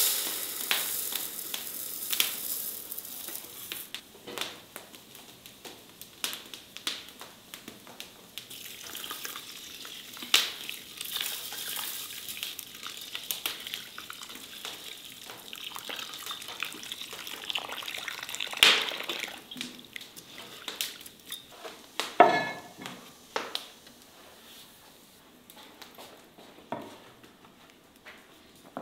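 Dry rice poured into an enamel basin, a brief loud rush at the start, then water poured from an enamel kettle onto the rice in the basin. Scattered clicks and knocks of handling run throughout, with one louder clatter about three-quarters through.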